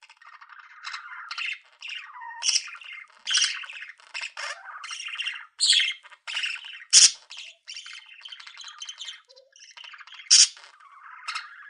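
Small pet birds chattering and chirping continuously, broken by several sharp, louder squawks.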